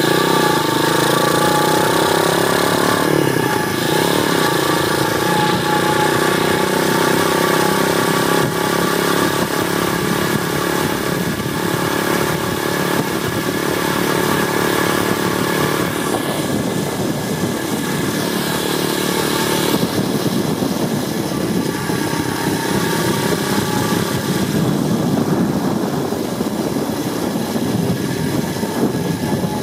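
Apollo 125cc pit bike's single-cylinder four-stroke engine pulling under way: revs climb, drop at a gear change about three seconds in and climb again, then hold at a fairly steady cruise.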